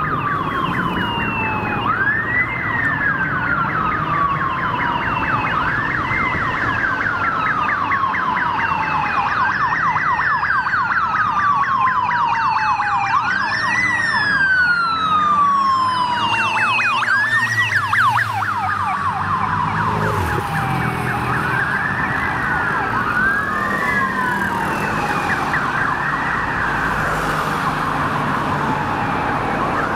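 Sirens of two Metropolitan Police motorcycles responding: a repeating wail that rises quickly and falls slowly about every three and a half seconds, with a faster warbling sweep mixed in through the middle, over steady traffic noise.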